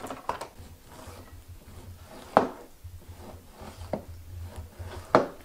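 Knife scoring skin-on salmon fillets on a plastic cutting board: soft cutting and rubbing with a few sharp knocks of the blade on the board, the loudest about two and a half seconds in and another near the end. A low steady hum runs underneath.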